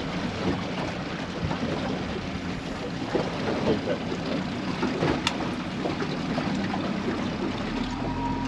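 Motor boat under way: engine running under a steady rush of water and wind, with scattered small knocks and splashes.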